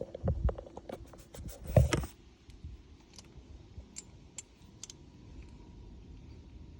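Small metal clicks and clinks of a socket being handled and fitted, a quick cluster with a louder knock in the first two seconds, then a few scattered single clicks.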